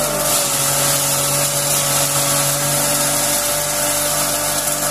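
Electric straw and grain crusher (drobilka) running steadily while straw is fed into its hopper and chopped: a steady motor hum under a dense hiss of shredded straw blowing out of the chute.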